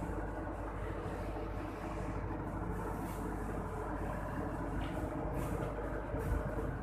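Steady mechanical hum of running machinery, with several steady low tones over a constant rumble.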